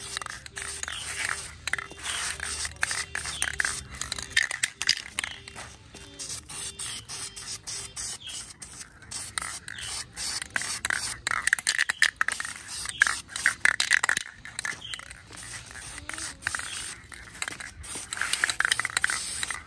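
Aerosol spray paint hissing onto a wheel rim in short, uneven spurts.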